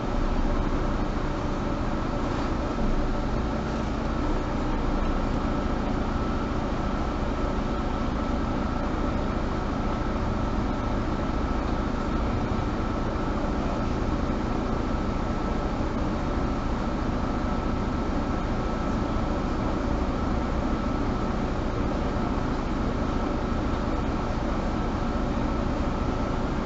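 Cabin sound of a Mercedes-Benz Citaro G (C2) Euro 5 articulated bus: engine and ventilation running steadily, with a constant hum and no change in pitch or loudness.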